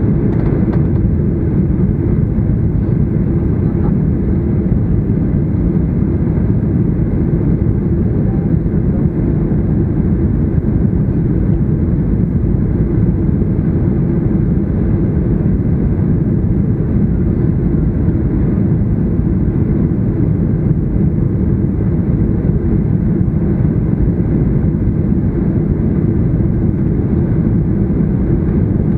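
Steady low roar of a Boeing 737-800's CFM56-7B jet engines and rushing airflow, heard inside the passenger cabin on final approach.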